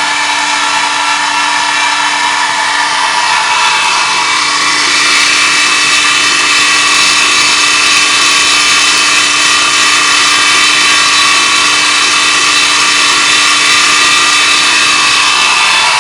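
Belt grinder running steadily at its fourth speed setting, a constant hum under a dense high whir of the belt, growing a little louder about five seconds in.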